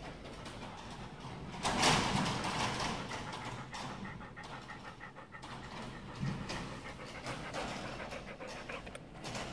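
A pit bull-type dog panting rapidly with its mouth open, loudest about two seconds in.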